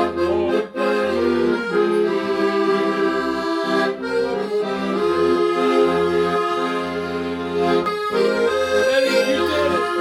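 Accordion music: held chords over a steady, repeating bass pattern.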